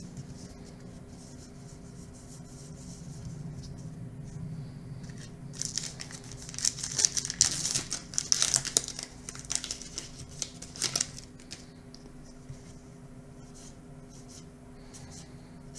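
A baseball-card pack wrapper being torn open and crinkled in the hands, a dense crackling from about six seconds in to about eleven, with quieter rustling of cards being handled before and after.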